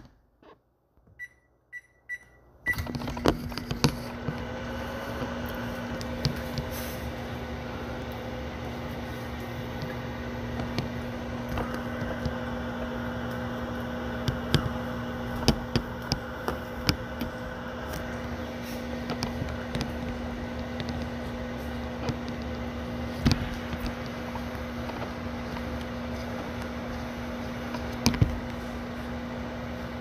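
Microwave oven: a few short keypad beeps, then it starts running with a steady hum about three seconds in, broken by occasional sharp clicks.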